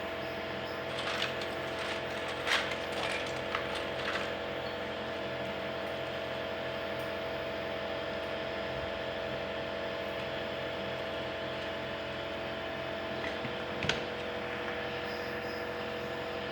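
A steady machine hum with a few light clicks and taps between about one and four seconds in, and one sharp click near the end.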